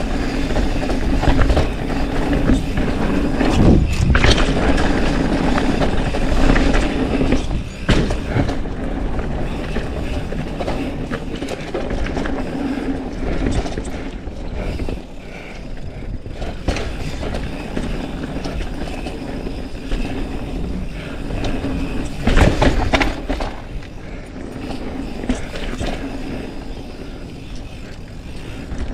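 Mountain bike riding fast down a dirt trail, heard from a helmet chin-mounted action camera: a continuous rush of wind, tyre noise and bike rattle, with a few harder jolts about four seconds in, near eight seconds, and again about twenty-two seconds in.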